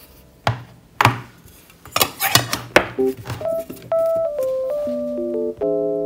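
A few sharp knocks and clatters of a tin candle container and its lid being handled and set down on a desk, then soft piano music from about three seconds in.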